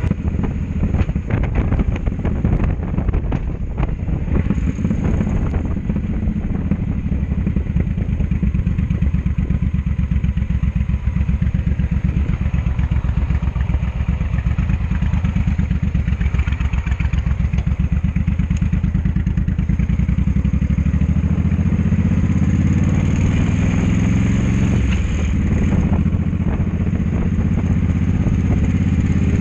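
Cruiser motorcycle engine heard from the rider's seat: it slows and ticks over steadily at a stop, then pulls away, its pitch rising with a brief break for a gear change.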